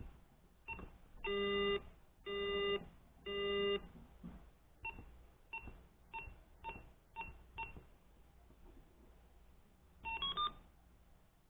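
Arduino-driven speaker beeping: a short single-pitch beep for each keypad press, three longer, louder, lower buzzes about one to four seconds in, then six more key beeps and, about ten seconds in, a quick rising run of four notes.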